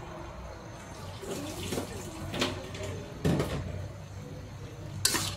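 Water spinach sizzling in a wok as it stir-fries. The metal spatula scrapes and knocks against the wok a few times, about halfway through and again near the end, loudest near the end.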